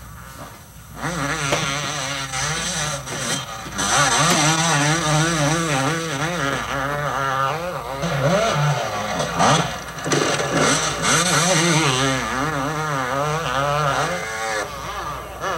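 Motocross bike engine revving hard, its pitch rising and falling quickly with throttle and gear changes. It is quieter for about the first second, then loud.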